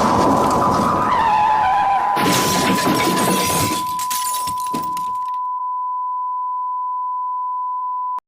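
Crashing and shattering sound effect of a collapsing building, glass and debris breaking, over a steady high-pitched test tone. The crash cuts off about five seconds in, leaving the tone alone until it stops abruptly near the end.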